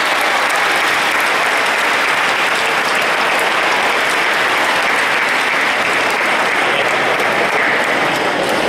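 Audience in a hall applauding, a dense, steady clapping.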